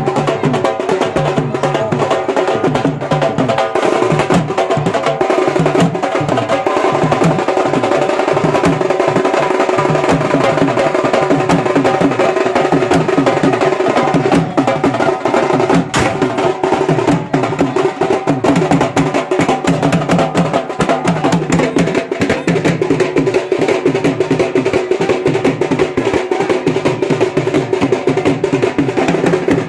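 Dhol drums beaten with sticks in a fast, steady rhythm, with a tune playing over them.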